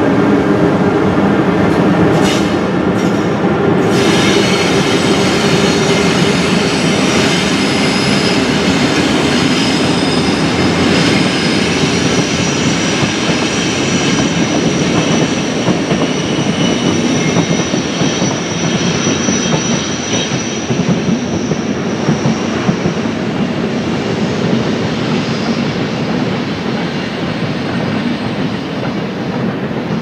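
DB class 120 electric locomotive's three-phase traction drive humming and whining in several steady tones as it pulls an InterCity train out of the station, with the rolling noise of the passing coaches. The sound slowly fades toward the end.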